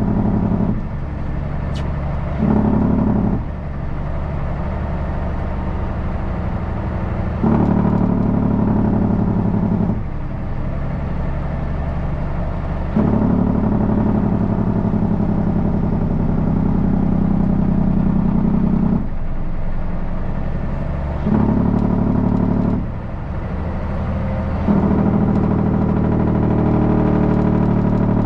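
Heavy truck's diesel engine running while driving, its sound stepping up and down between louder and quieter stretches as the load on the engine changes.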